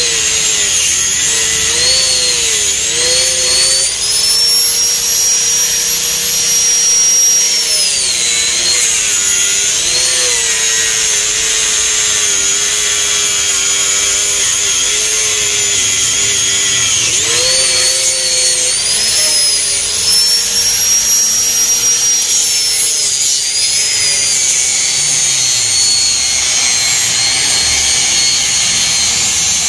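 Small electric angle grinder cutting through the fibreglass flange of a mould, its motor whine dipping and recovering in pitch again and again as the disc bites and eases off.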